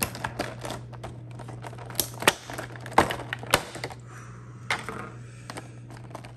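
Thin clear plastic blister packaging being pried open and handled: irregular sharp clicks and snaps with crinkling of the plastic, the loudest snaps about two and three seconds in.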